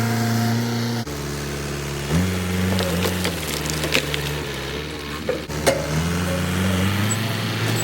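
Engine of a machine pushing through brush and old trees, its pitch dropping and rising in steps as the load changes, with a few sharp cracks and snaps in the middle.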